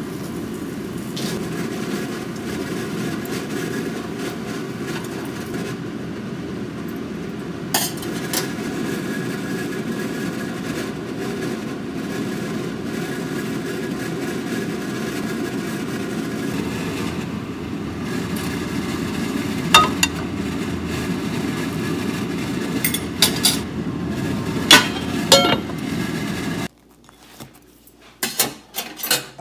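Steady low whirring of a kitchen fan, with a few sharp clinks and knocks of a plate and utensils. The whirring cuts off suddenly near the end, leaving only light clicks.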